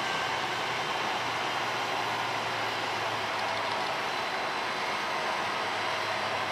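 Brand-new Trenord diesel multiple unit running slowly through the station yard on a shunting move: a steady diesel engine hum under an even mechanical noise.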